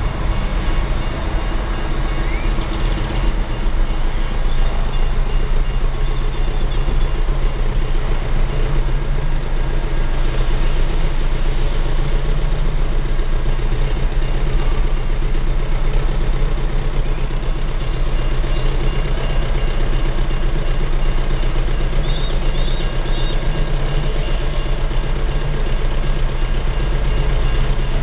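A vehicle engine idling steadily with a constant low rumble, heard from inside a car's cabin.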